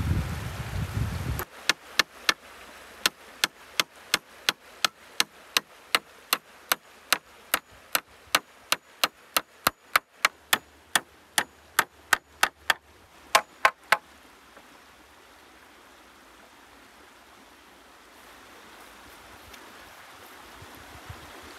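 A hammer driving nails into wooden slats, sharp blows at about three a second in quick runs with short breaks, stopping about fourteen seconds in. It opens with a brief low rumble, and after the hammering only a faint steady river hiss remains.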